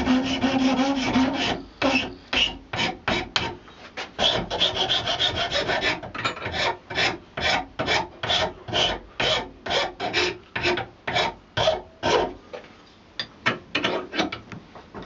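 Hand file rasping across buffalo horn, shaping the nose of a walking-stick handle. The strokes come fast and close together at first, then settle into a steady back-and-forth of about two strokes a second, thinning out near the end.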